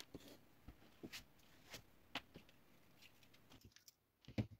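Near silence with faint, scattered small clicks and taps of thin wires and small parts being handled on a workbench, with a slightly louder tap near the end.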